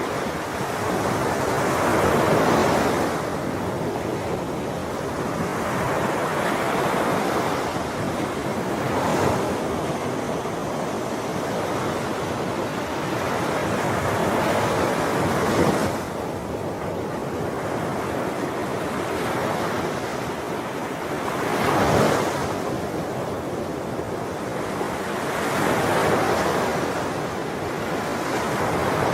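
Sea waves washing onto a shore, with a continuous rush that swells and recedes every few seconds. The strongest surges come about 2, 15 and 22 seconds in.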